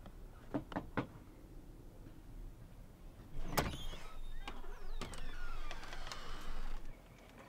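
Three quick knocks on a door, then a sharp click of a latch about three and a half seconds in, followed by a door creaking on its hinges for a couple of seconds before the sound cuts off.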